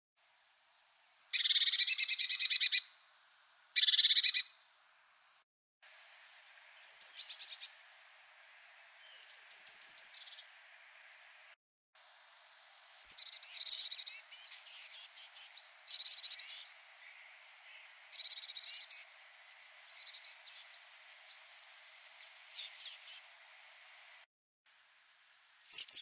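Great tit calls: a sequence of separate call recordings with short silences between them. It opens with two harsh, rasping churrs, then quick runs of high, sharp ticking notes, and from about halfway on many short, repeated calls.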